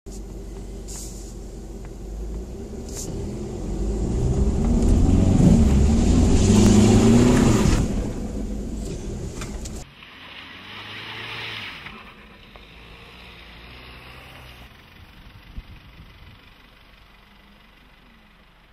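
Honda CR-V 1.6 i-DTEC four-cylinder turbodiesel driving, its engine note rising and falling as it accelerates, loudest about two-thirds of the way through the first half. After a sudden cut about halfway, the engine is much quieter as the car moves slowly along a track, with one sharp knock a little later before the sound fades.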